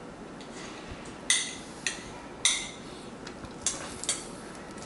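A metal spoon clinking against a ceramic bowl of food, five sharp clinks spread across the few seconds, the two loudest ringing briefly.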